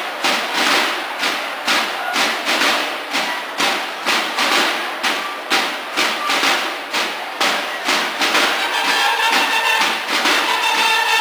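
Snare drums of a school drum and bugle corps (banda de guerra) playing a steady march cadence, with accented strokes about twice a second. About 8 to 9 seconds in, bugles come in with held notes over the drums.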